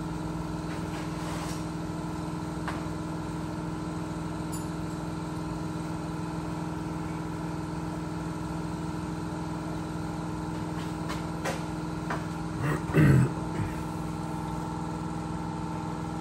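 A steady mechanical hum holding several fixed tones, unchanging throughout, with a brief louder clatter about three seconds before the end.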